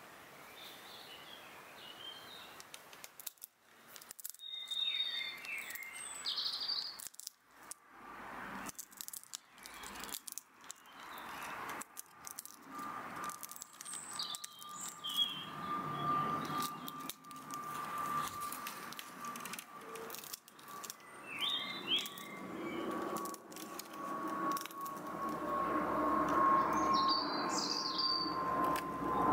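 Birds chirping in short calls every few seconds. From about halfway, a steady mechanical drone with a tone that slowly sinks in pitch grows louder toward the end, like a vehicle passing at a distance.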